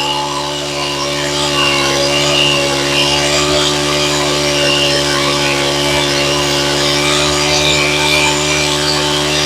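Honda GX25 four-stroke brush cutter engine running steadily at a constant speed on a test start. It runs without rattling or howling, as the seller describes it: a sign of a healthy engine.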